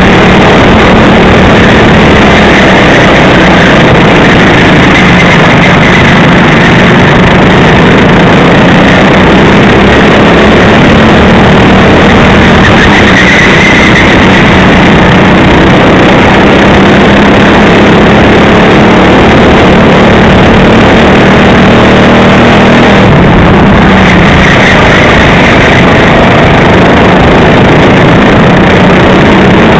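Racing kart engine heard from onboard, running hard and continuously at near full throttle, loud and overloaded, under a dense rush of noise. The engine note dips briefly about three quarters of the way through, as if the throttle is lifted for a corner, then climbs again.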